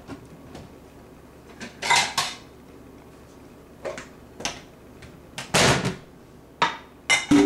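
Pressure cooker lid being handled: a series of separate knocks and clatters of metal and plastic, with a short scrape midway and a brief metallic ring in a cluster of clatters near the end.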